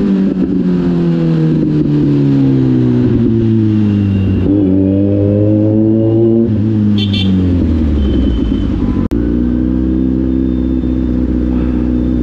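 Kawasaki Z900's inline-four motorcycle engine. Its pitch sinks for the first four seconds, climbs for about two seconds, sinks again, then holds steady. The sound cuts out for an instant about nine seconds in.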